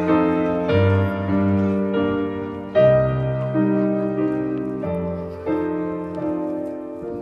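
Piano music: a slow, gentle piece of single notes and chords, each struck sharply and then left to ring and fade.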